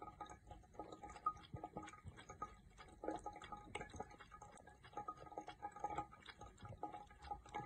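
A cat lapping water from a thin stream running from a tap into a sink: faint, quick wet clicks over a soft trickle.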